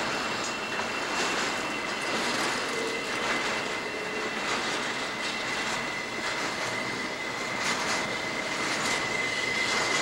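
Southern Pacific intermodal freight cars rolling slowly past, their steel wheels giving a steady high squeal that grows stronger near the end, over the rumble of the train, with scattered clicks of wheels over the rail.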